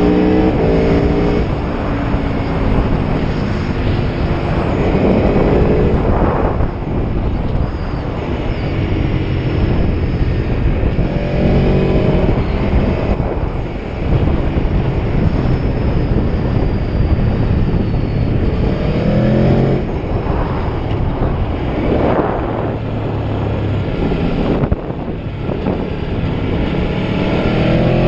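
Aprilia Tuono V4 1100's V4 engine pulling hard under the rider, its pitch climbing through the revs and dropping at each gearshift several times over. A steady rush of wind noise runs underneath.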